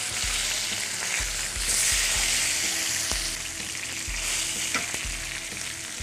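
Holy basil leaves deep-frying in hot oil in a frying pan, sizzling loudly and easing a little toward the end. The sizzle means the leaves are still giving off moisture; once it goes quiet they are crisp.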